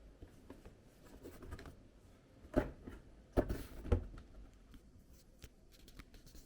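Clicks and knocks from a mechanical keyboard with blue switches: scattered faint clicks, with three louder knocks about two and a half to four seconds in.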